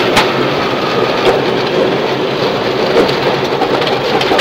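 In-cabin noise of a Subaru Impreza rally car at speed on a gravel stage: its flat-four engine running under a steady hiss and patter of gravel thrown against the underbody, with a few sharp clicks.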